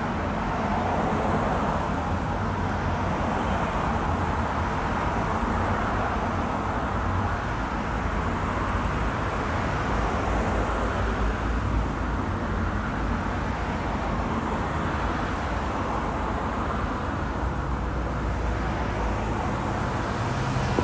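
Road traffic: a steady wash of car and tyre noise, swelling and fading several times as vehicles pass.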